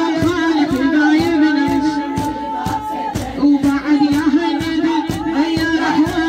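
Iraqi latmiya mourning chant: a reciter sings a long, wavering melodic line over a sustained chorus of voices, with evenly spaced sharp beats of latm (rhythmic chest-beating) keeping time.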